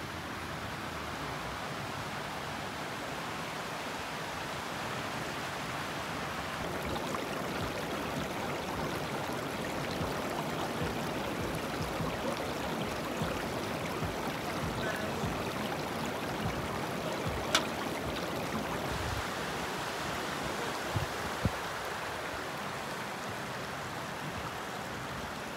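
Shallow mountain stream running over rocks: a steady rushing babble. Two brief sharp clicks come in the second half.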